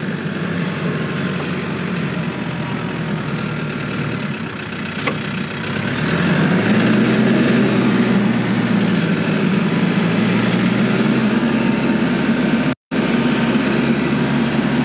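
TYM T474 compact tractor's diesel engine running as it pulls a box blade through grass. About six seconds in the engine note rises and gets louder as it is given more throttle, and the sound cuts out for a moment near the end.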